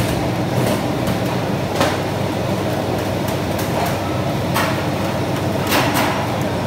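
Steady rumbling din of a shrimp processing hall's machinery, with a few sharp knocks and clatters of handling, at about two seconds in and twice more in the second half.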